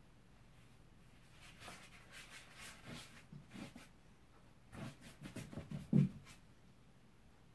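Paintbrush loaded with white paint stroking across cardboard: two runs of short, soft scratchy strokes, with one louder dull knock near the end.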